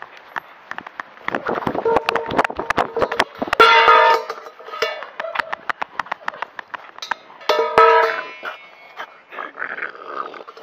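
Metal harness hardware clinking and knocking against a chest-mounted camera as a dog moves, in quick irregular clicks. Two louder pitched ringing sounds come about four and eight seconds in.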